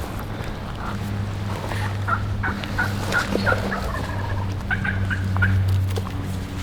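A Rio Grande wild turkey gobbler gobbling twice, a rapid rattling run of notes, over a steady low hum and wind noise.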